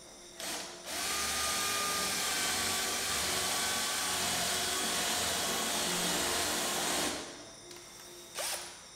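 Cordless drill boring a hole into a black countertop: a short burst, then about six seconds of steady drilling with a hissing grind and a faint whine, and another brief burst near the end.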